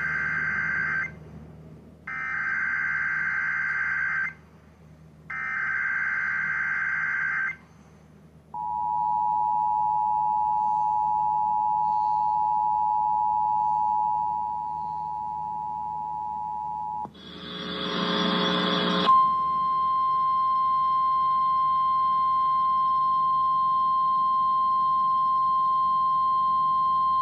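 Emergency Alert System activation on radio. It opens with three one-to-two-second bursts of the SAME digital header, a data screech, followed by the two-tone EAS attention signal (853 and 960 Hz together) held for about eight seconds. A loud burst of noise of about two seconds follows, then the single steady 1050 Hz NOAA Weather Radio alert tone for about eight seconds.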